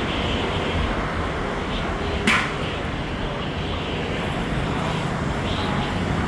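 Steady street and traffic noise, with one sharp click or knock about two seconds in.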